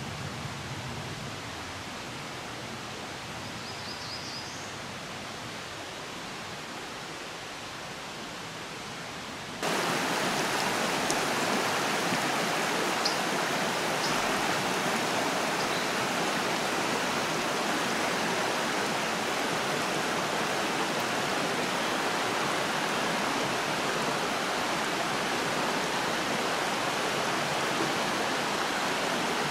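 Shallow rocky mountain stream rushing steadily over stones, coming in suddenly and much louder about a third of the way in. Before that, a quieter steady outdoor hiss with one brief high chirp.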